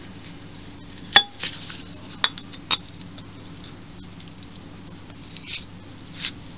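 Metal lathe parts clinking and knocking as they are handled: a sharp clink with a brief ring about a second in, two more a second or so later, and softer knocks near the end.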